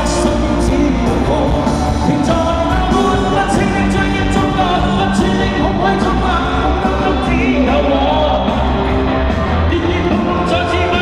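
Chinese pop-rock song playing: a full band with a steady bass and a singing voice, continuous and loud.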